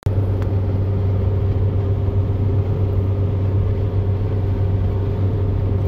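Steady road rumble and engine hum inside a car's cabin while driving at highway speed, a constant low drone that does not change.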